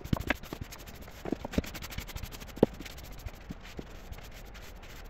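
Sweeping and clearing a workbench top by hand: scraping and rubbing across the bench with scattered light knocks and clatters, one sharper knock about two and a half seconds in.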